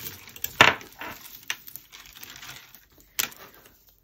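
Hands rummaging through a tangled heap of broken costume jewellery: beads, chains and cords rustling and clicking against each other, with a sharp clack about half a second in and another after about three seconds.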